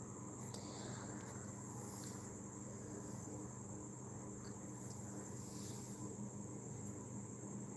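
Crickets trilling steadily in a high, unbroken drone over a faint low hum.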